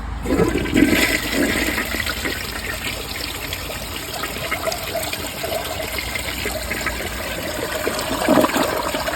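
Briggs Altima toilet flushing, heard close up: the water rushes in just after the start, runs steadily, and surges again near the end.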